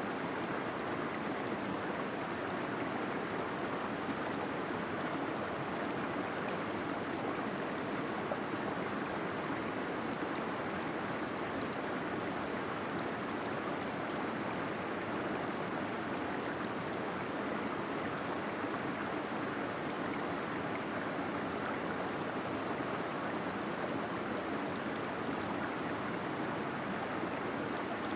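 Small waterfall splashing and gurgling inside a cave: a steady, even rush of falling water.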